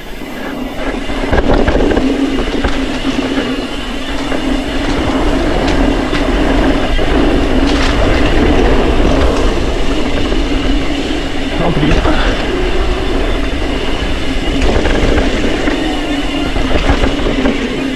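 Mountain bike ridden down a dirt singletrack: tyres rolling over the trail with the bike's chain and parts rattling and knocking over bumps, and wind rumbling on the microphone.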